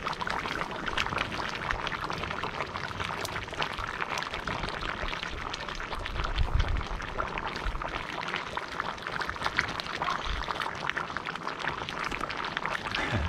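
Stew bubbling in a pot over an open wood fire: a steady hiss with frequent small pops and crackles.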